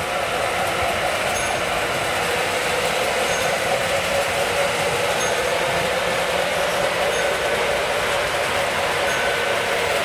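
Several O scale model trains running around a layout: a steady rumble and whir of wheels on track and locomotive motors.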